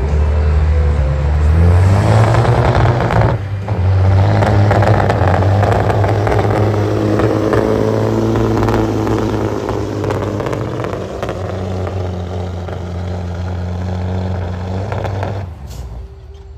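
International semi truck's diesel engine at full throttle, pulling a weight-transfer sled. It revs up over the first two seconds, drops briefly about three and a half seconds in, then holds a steady loud drone and winds down near the end as the truck stops.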